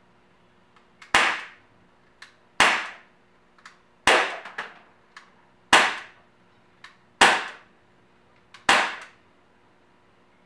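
Daisy Powerline 5501 CO2 blowback BB pistol firing six shots in slow semi-automatic succession, about one and a half seconds apart. Each shot is a sharp crack with a short fading tail, and a faint click comes just before each one.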